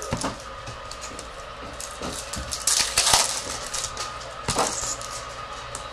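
Crinkling and rustling of trading-card packs and wrappers being handled and torn open, with small crackles throughout and louder crinkles about three seconds in and again a little later.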